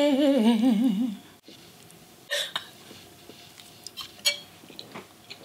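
A woman's voice holds a wavering, sung note for about a second. Then come soft eating sounds: a short noisy smack about two seconds in and faint clicks of chewing on a mouthful of spaghetti.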